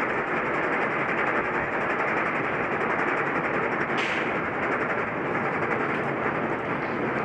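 Schwarzkopf Double Looping roller coaster train climbing the lift hill: a steady mechanical rattle of the lift and wheels on the steel track, with a brief hiss about four seconds in.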